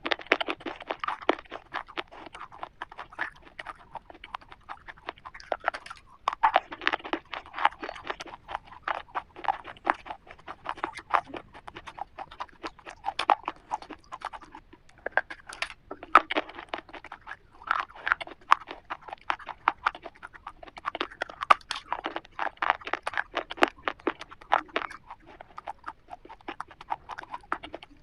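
Close-miked crunching and chewing of a chocolate-coated wafer bar: dense, crackly crunches in bursts with short pauses between bites.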